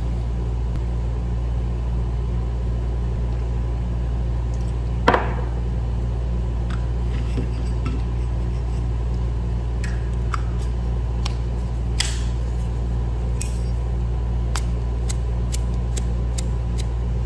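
Small metallic clicks and taps of a Zippo lighter being handled and refilled with lighter fluid: one sharper click about five seconds in, a few light ones after it, and a quick run of light clicks near the end. A steady low hum runs underneath.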